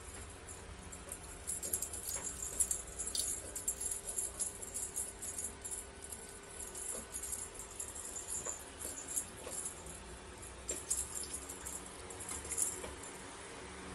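Kittens playing with a string wand toy on a wooden parquet floor: bursts of light, high-pitched rattling and scratching from their claws and the toy skittering on the wood. It is busiest a couple of seconds in and again near the end.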